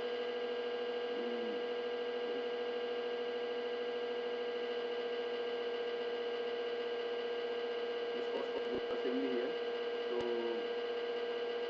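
Steady electrical mains hum running under the recording, with a few faint clicks about two-thirds of the way through.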